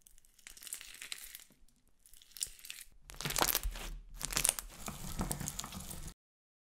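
Sticky glitter slime being squeezed by hand and forced through a garlic press and a hand-cranked meat grinder: four short bursts of dense crackling and popping, one after another. The sound cuts off suddenly about six seconds in.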